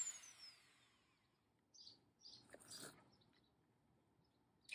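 Dremel 4000 rotary tool switched off and spinning down, its high whine falling in pitch and fading over about a second, followed by near quiet with a few faint bird chirps. Right at the end the tool starts up again, its whine rising.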